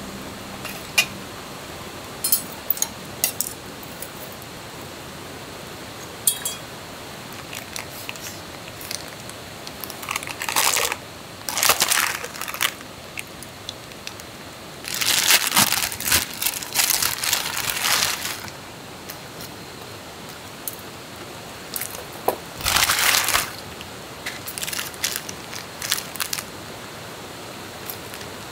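Rustling and crinkling of handled material, with scattered light clicks and knocks. Three louder stretches of rustling come in the middle and later part, the longest about three seconds.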